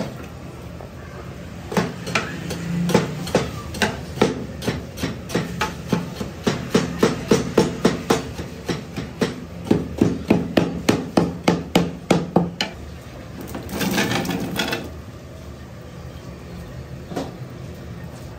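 Rapid repeated hard knocks, like chopping on a block, sparse at first and then about three a second, stopping a little over halfway through. A short burst of hiss-like noise follows soon after.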